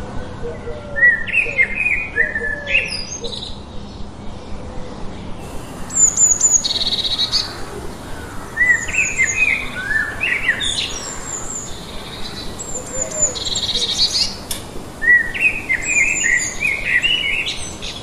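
Small birds chirping and calling in short repeated phrases of quick high notes, some clusters trilled, a few seconds apart.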